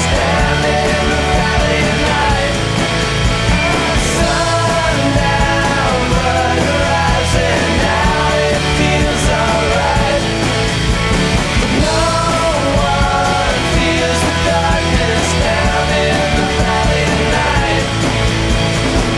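Rock music with a driving beat and sung vocals.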